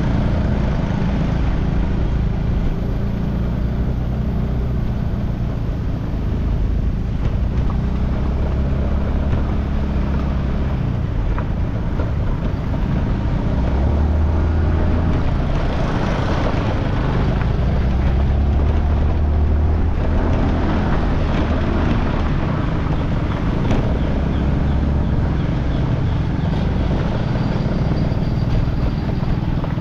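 Motor scooter on the move, its small engine running under a steady low rumble of road noise.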